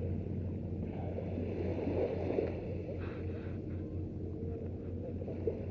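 Calm seashore: small waves lapping on a sandy beach over a steady low rumble.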